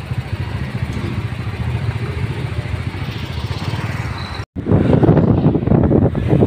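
Motorcycle running at low speed in traffic, steady engine and road noise. About four and a half seconds in, the sound drops out for a moment and comes back louder and rougher, with wind rumbling on the microphone.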